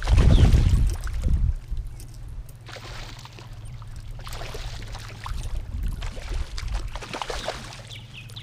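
Water sloshing and splashing, coming in three swells of about a second each over a steady low hum. A loud low rumble fills the first second and a half.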